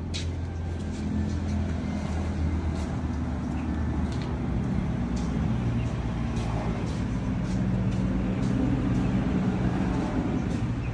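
A motor vehicle engine running steadily, a low hum whose pitch shifts slightly about halfway through.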